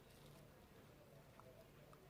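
Near silence: faint room tone with a couple of small ticks.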